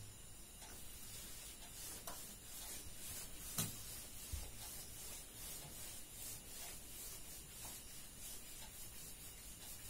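Board eraser wiping marker writing off a whiteboard: faint rubbing strokes, with a few light ticks and one sharper tap about three and a half seconds in.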